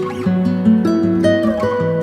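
Background instrumental music with plucked strings, the notes changing every half second or so.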